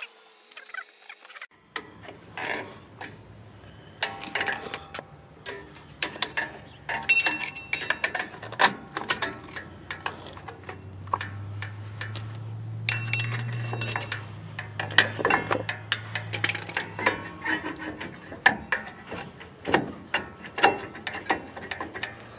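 Screwdriver and hands working metal parts of a drum brake at the wheel cylinder: irregular metallic clicks and clinks, over a low steady hum that comes in about two seconds in and swells in the middle.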